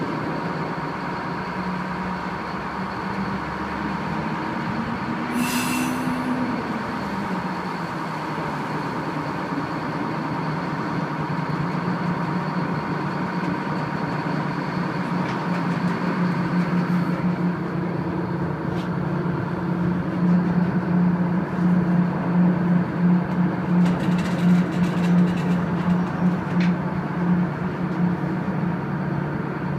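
A tugboat's diesel engines running, heard from the bow deck as a heavy, steady drone. The pitch rises and falls once about five seconds in, with a short hiss, and the drone grows louder and pulses unevenly in the second half.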